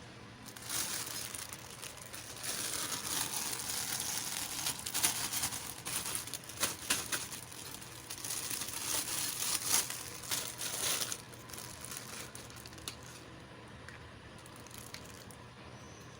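Packaging being crinkled and torn open by hand, a dense crackle with sharp snaps that dies down about eleven seconds in to a few light clicks.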